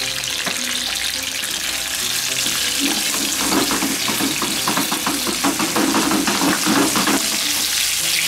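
Chicken pieces sizzling skin-side down in olive oil in a frying pan over low heat. From about three seconds in, a utensil clicks and scrapes against the pan for a few seconds as the pieces are handled.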